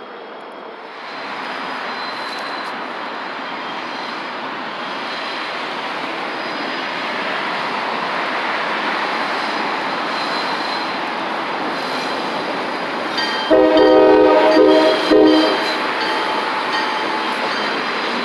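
Diesel switcher locomotive rolling past with a steady rumble. About 13 seconds in it sounds a loud chord horn of several notes: one long blast, then a short one.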